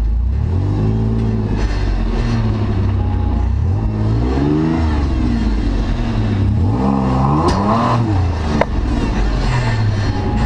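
Third-generation Toyota 4Runner's engine, heard from the hood, revving up and down in repeated throttle blips as it crawls over rocks. A couple of sharp knocks come near the end.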